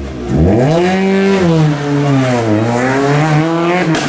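Rally car engine revving hard, its pitch climbing over the first second, sinking for about a second, then climbing again near the end.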